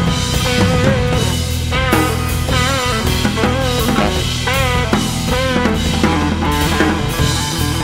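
Music with a drum-kit beat, a steady bass, and a lead melody that bends up and down in pitch.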